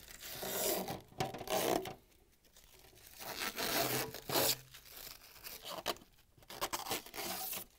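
Protective plastic film being peeled off a new clear plastic Samsung refrigerator freezer drawer: the film tears and crinkles as it comes away in about three long pulls, with short pauses between them.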